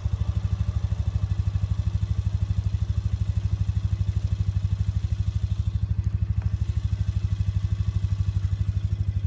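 Small engine running steadily at an even speed, with a fast, regular pulse and no revving.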